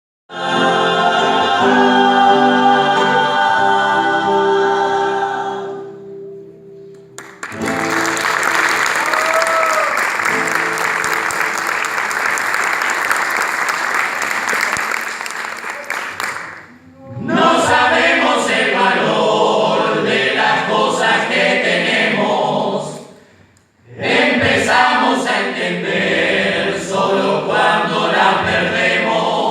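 A choir sings, starting with a sustained chord that stops after about six seconds. Next comes a long stretch of dense, hissing noise with a brief sliding voice in it. Choppy, rhythmic choral singing follows in two phrases with a short break between them.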